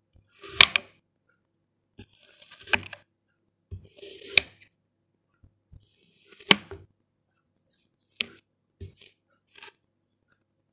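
Kitchen knife slicing through moulded kinetic sand: a soft, crumbly hiss as the blade sinks in, each cut ending in a sharp tap of the blade on the board. About five clear taps roughly two seconds apart, then a few lighter ones near the end.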